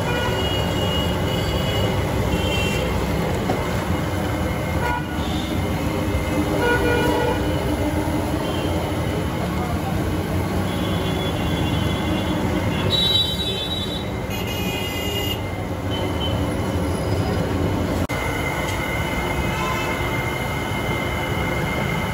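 Thick stream of hot masala milk gushing from a boiler's tap into a steel bucket, a steady loud pouring and splashing noise with short high tones coming and going over it.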